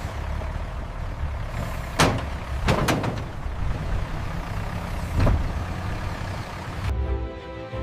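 Low steady rumble of idling truck and forklift engines, with short air-brake hisses about two, three and five seconds in. Background music comes in near the end.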